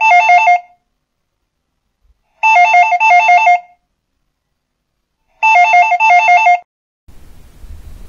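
Modern telephone ringing with an electronic warbling double ring: three rings about three seconds apart, the first already under way, each two short bursts of a fast two-tone trill. A faint noise starts near the end.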